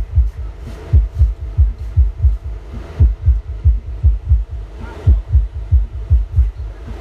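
Large outdoor PA sound system playing a bass-heavy test beat: deep, even thumps about three a second from the subwoofers, with fainter higher sounds over them.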